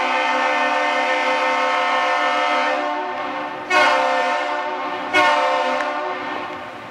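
Great Lakes freighter's ship horn, on the bulk carrier Great Republic, sounding one long blast and then two short blasts about a second and a half apart. This is the long-and-two-short salute given on leaving port.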